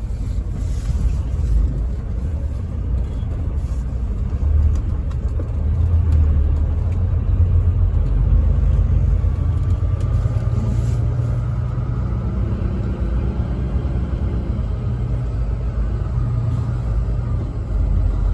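Truck engine and road noise while driving: a steady low drone, with a faint whine joining in from about ten seconds in.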